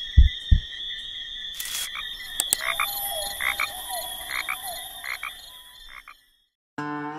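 Frogs calling: a long steady trill with shorter calls repeated over it, with two low thumps in the first second. The calling cuts off around six seconds in, and acoustic guitar music begins near the end.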